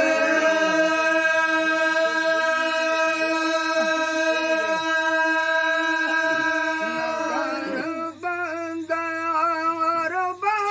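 Male voices singing a Sindhi molood unaccompanied. A long, steady held note lasts about seven seconds, then a voice carries the melody in short, wavering phrases.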